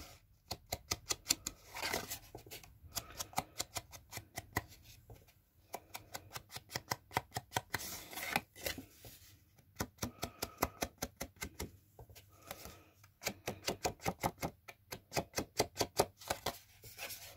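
Finger sponge dauber dabbed quickly against the edges of cardstock, inking them: runs of soft taps, about five a second, in bursts with short pauses between.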